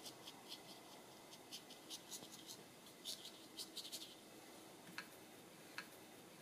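Faint, quick scratching of a medium round brush dragged and dabbed across watercolour paper, dry-brushing foliage, in short clusters of strokes. Two sharper small clicks near the end.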